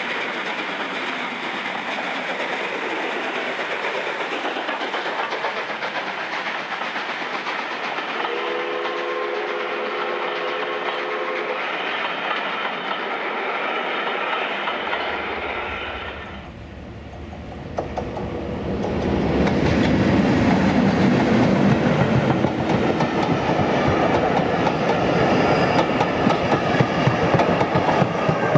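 Passenger coaches rolling past on jointed track, wheels rumbling. A steady train whistle is held for about three seconds around a third of the way in. After a brief dip about halfway through, a diesel-hauled train passes close by, louder and heavier, with a low rumble and the clickety-clack of wheels over rail joints.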